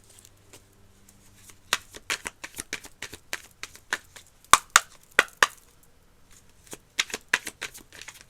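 Tarot cards being shuffled and handled: a string of sharp, irregular card snaps and slaps, loudest a little past the middle.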